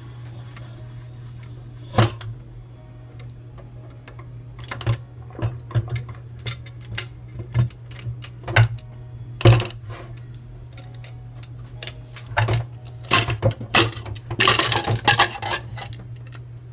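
Pressure cooker lid being worked open by its handle: scattered metal clicks and knocks, then a quick run of clattering and scraping near the end as the lid comes off the pot.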